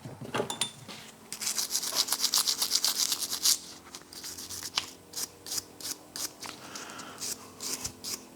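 Soft-bristle brush scrubbing a grimy metal motorcycle part, a fast run of short back-and-forth strokes for about two seconds, then slower, scattered strokes.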